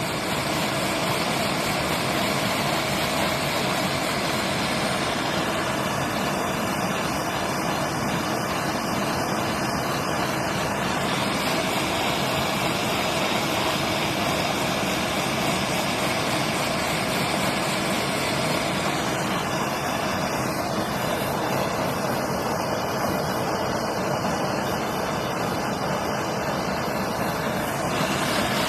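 Handheld gas torch flame burning with a steady rushing noise as it heats a rust-seized brake wheel cylinder to free its piston. A faint high crackle comes and goes above it twice.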